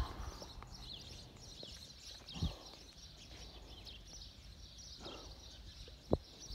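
Small birds chirping busily outdoors, with two dull thumps, one about two and a half seconds in and one near the end.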